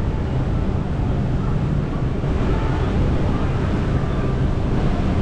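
Steady wind noise on the microphone over a low, even rumble, with faint distant voices.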